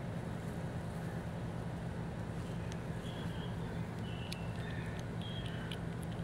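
Steady low mechanical hum, with faint scattered clicks of a cat lapping milk from a saucer.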